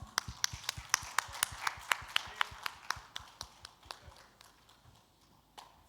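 Scattered applause from a small audience: separate hand claps at about four a second, fading away over about four seconds, with one last clap near the end.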